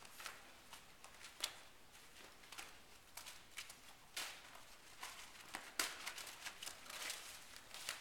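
Faint, scattered rustles and soft scuffs of a saddled horse and its handler shifting about on arena sand, with a couple of sharper clicks.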